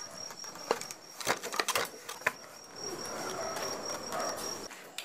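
Traditional wooden hand loom being worked to weave brocade: irregular wooden knocks and clacks from the beater and treadles, then a rustling stretch in the second half, with a thin steady high tone behind.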